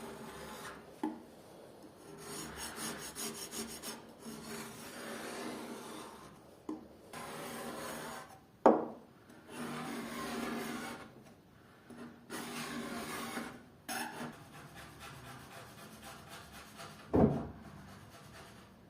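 Hand tool scraping old paint off a wooden dresser in long, repeated strokes. There are three sharp knocks, the loudest near the middle.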